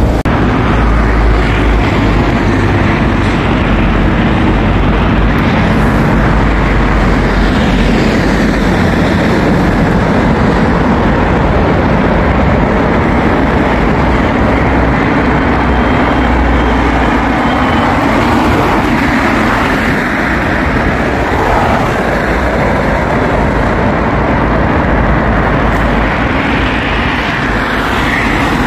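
Subway train running, heard from inside the car: a steady loud rumble and rush of wheels on rail, with a faint whine that glides up and down in pitch a few times.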